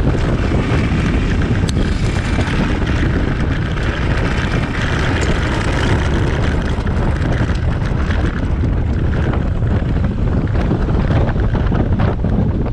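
Cessna A185F's six-cylinder engine and propeller running at low taxi power, largely buried under steady, heavy prop-wash and wind buffeting on the microphone as the plane rolls across the grass.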